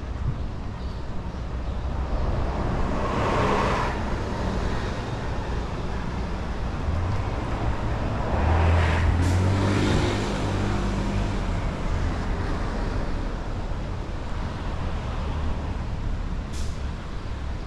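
City street traffic: vehicles pass twice over a steady low traffic rumble, once about three seconds in and again, louder and with a deep engine note, around nine seconds in.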